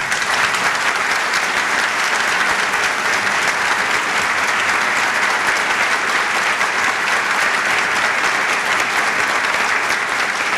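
Large audience applauding, breaking out suddenly and holding steady.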